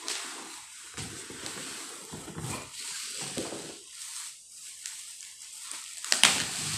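Cardboard box flap and bubble wrap being handled: irregular rustling and crinkling of plastic as a wrapped pot is lifted out of its box, with one louder crackle about six seconds in.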